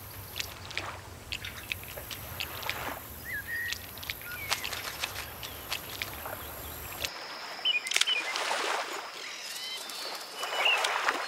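Wetland ambience: scattered short bird chirps and light water splashes over a low steady hum. About seven seconds in the hum drops out, and several quick chirping bird calls come in with brief splashing sounds.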